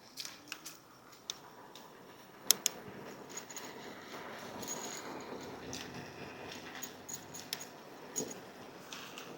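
MOYDAR A9 electric folding bike being ridden: light irregular clicks and rattles over a faint steady hum, with one sharper click about two and a half seconds in.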